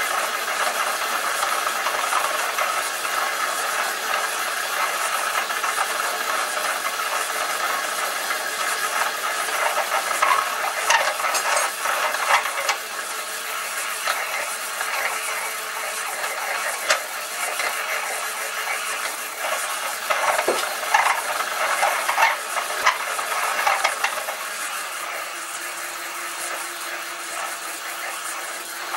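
A lathe-driven machine reamer cutting a bore in a metal block: a steady hissing scrape of the flutes shaving metal, with sharper scrapes and clicks now and then through the middle of the cut.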